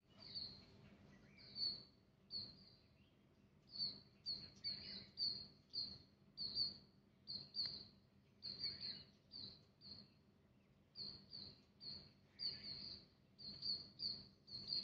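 A small bird chirping over and over, short high chirps coming a few times a second in an uneven rhythm, with faint clicks among them.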